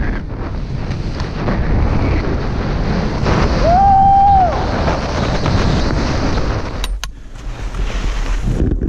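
Wind rushing over an action camera's microphone and skis running through snow during a fast ski descent, a steady rough noise. About four seconds in, a brief held high tone sounds for about a second, rising at the start and falling at the end.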